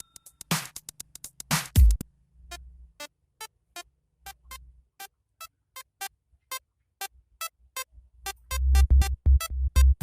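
Electronic background music: a drum-machine beat with heavy kick hits at the start and near the end, and a run of short synthesizer notes between them.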